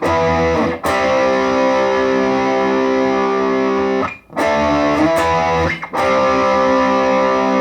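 Electric guitar (Vintage VS6) through a Positive Grid Reactor 50 combo amp on its Hi-Gain channel with the heat control one step up, noise gate and reverb on: distorted chords struck and left to ring, cut off sharply about four seconds in, then struck again a few times.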